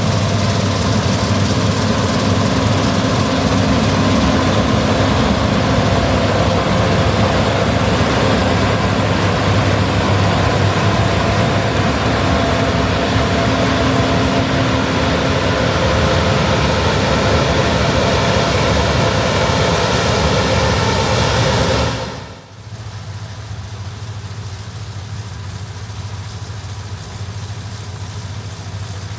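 Gleaner R65 combine harvester running with a loud, steady engine drone and mechanical hum. About 22 seconds in it drops suddenly to a quieter, steady engine hum.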